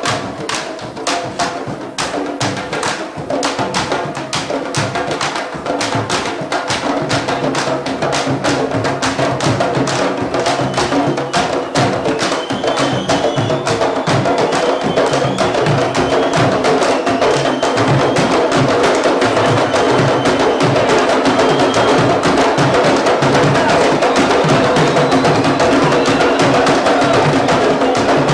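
Candombe drum line of tambores (chico, repique and piano) playing a fast, dense rhythm of sharp hand and stick strokes on the drums. It grows louder through the first half, then holds.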